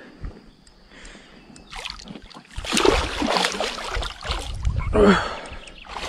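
A large hooked fish thrashing and splashing hard at the water's surface beside the boat. The splashing starts about two and a half seconds in and is loudest about five seconds in.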